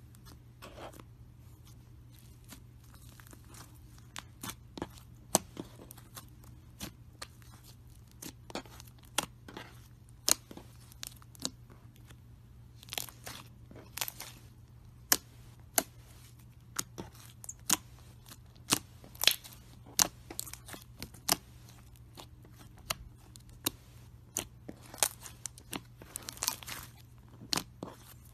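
White slime with yellow clay worked into it, pressed and kneaded by hand, giving many sharp, irregular clicks and pops. The clicks are sparse at first and come thick and fast after about four seconds.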